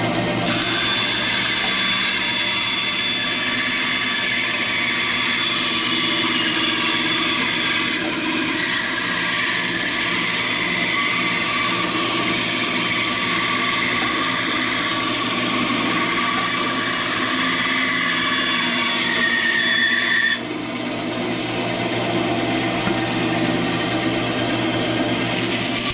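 Band saw running, its blade cutting a cedar board along a curved line, with a steady motor hum under the rasp of the cut. About three-quarters of the way through, the cutting noise drops off suddenly and then builds back.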